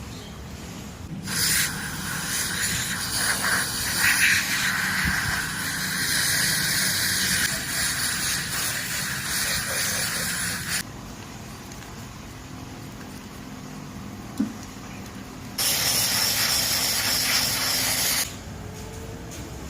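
Aerosol throttle body cleaner spraying in two long hissing bursts: the first lasts about nine seconds, the second about three seconds near the end. A single short click falls between them.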